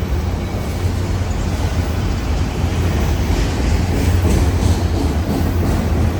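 Auto rack freight cars rolling past in a steady, loud, low rumble, with faint wheel clicks about halfway through.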